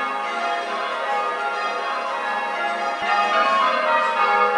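Church bells being rung in changes by a band of ringers, heard from inside the church: a continuous tumble of overlapping bell strokes, growing a little louder about three seconds in.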